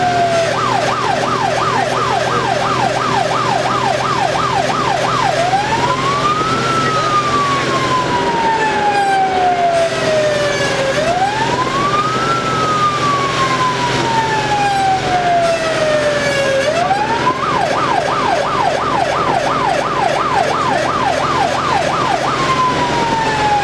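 Fire engine's siren heard from inside its own cab, switching between a fast yelp and a slow rising-and-falling wail: fast yelp at first, two slow wail cycles, the fast yelp again, then a slow fall near the end. The truck's engine runs underneath as a steady drone.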